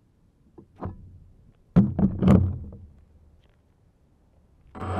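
Knocks and thuds from handling a camera-carrying DJI quadcopter, the loudest a cluster of thuds about two seconds in. Near the end the quadcopter's electric motors and propellers start up suddenly into a steady hum with several pitches.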